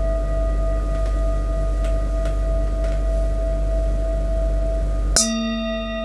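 Metal singing bowl ringing with a steady cluster of overtones. About five seconds in there is a sharp click, after which a new lower tone joins and the background hiss drops away.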